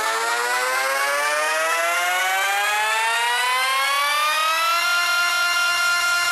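Electronic dance music build-up: a synth tone with many overtones rising steadily in pitch for about five seconds, then holding level.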